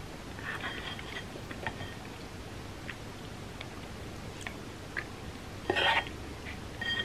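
Close-miked chewing and soft mouth noises from someone eating, with scattered small clicks. A louder sharp clack comes about six seconds in.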